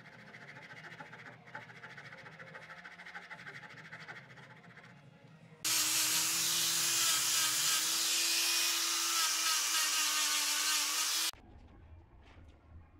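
Electric angle grinder fitted with a sanding pad, running at a steady speed while sanding wooden table legs. It starts abruptly a little before the middle and cuts off abruptly about five and a half seconds later, with much quieter sounds before and after it.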